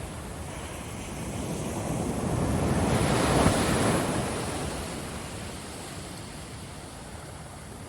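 Ocean surf on a beach: one wave swells up, breaks about three and a half seconds in, and washes out slowly.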